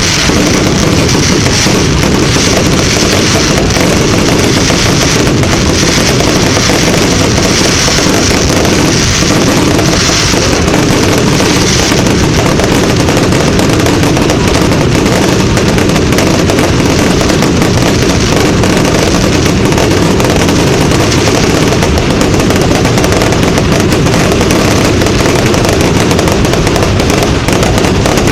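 Fireworks going off in a loud, unbroken barrage of rapid crackling bangs, with no pause between them.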